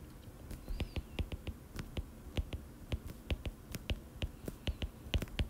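Stylus tip tapping on a tablet's glass screen during handwriting: a quick, irregular run of light clicks, about three or four a second.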